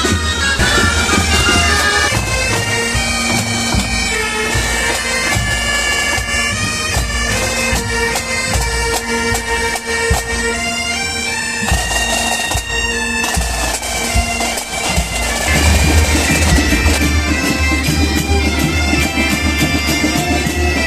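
Bagpipes playing a tune over a steady drone, with a deep rumble underneath that grows heavier in the last few seconds.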